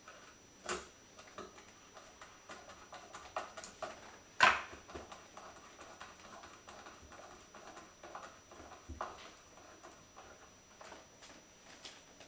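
Small assembly handling sounds: a hand screwdriver, screws and washers worked into a wooden spinning-wheel frame, giving scattered light clicks and rustles. Two sharper clicks stand out, about a second in and a little after four seconds in, the second the loudest.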